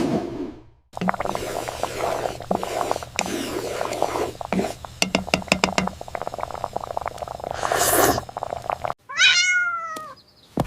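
A cat meows once near the end, one falling call. Before it comes a busy run of clicks and rustling, with a whoosh at the start and another shortly before the meow.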